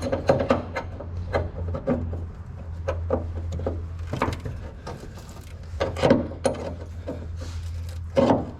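Hand tools working on a steel suspension bracket under the car: irregular knocks, clinks and scraping of metal on metal, over a steady low hum.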